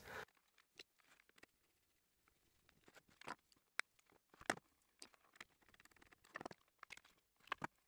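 Faint, irregular small clicks and scrapes of a screwdriver working the screw terminals of a Mean Well power supply's terminal block as the mains wires are fastened.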